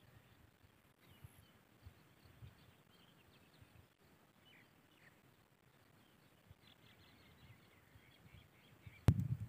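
Faint, scattered chirps of small birds over a quiet rural background. About nine seconds in, a sudden loud, low rumble cuts in.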